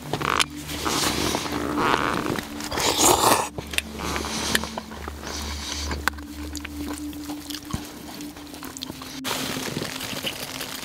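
A metal spoon scraping and knocking in a bowl while food is chewed, in irregular bursts with a few sharp clicks, over a low steady hum.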